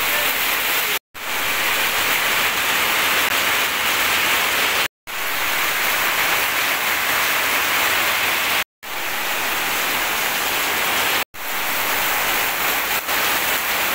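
Heavy rain falling on a tin roof and foliage: a steady, dense hiss. It cuts out abruptly for a split second four times.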